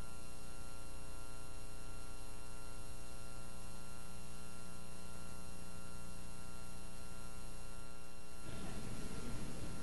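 Steady electrical mains hum with many evenly spaced overtones. About eight and a half seconds in, it gives way to a fainter, fluttering background noise.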